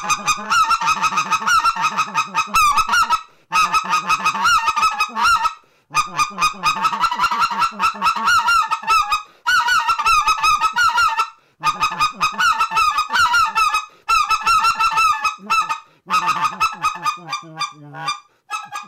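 RedBone goose call blown in the clear-air style: rapid strings of goose clucks, the machine-gun cluck run together with yodels. It comes in about seven runs of a couple of seconds each, broken by short pauses for breath.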